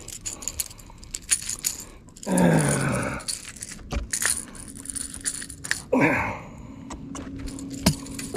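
Small bass being unhooked by hand from a Red Eye Shad lipless crankbait: scattered light clicks and jangles from the lure's rattles and treble hooks. The angler makes two short voice sounds, about two and six seconds in, and a faint low hum runs through the second half.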